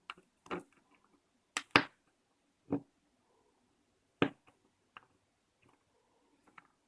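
Small metal clicks and taps, about eight of them at irregular intervals, as a key is worked in a Citroen C1 door lock cylinder whose wafer tumblers are stuck.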